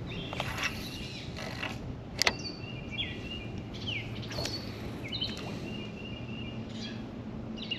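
Bird chirping in short, high calls that sweep downward, about one a second, over a steady low hum. A single sharp click comes a couple of seconds in.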